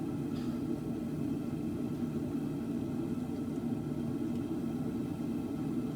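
Forge running with a steady, even rumble and a low hum underneath.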